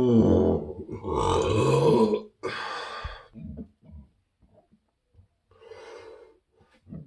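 A man's deep, pitched burps: a long one that tails off just under a second in, then two more, the first with a pitch that dips and rises again, about one and two and a half seconds in. After them come small scattered throat sounds and one faint short burp near six seconds.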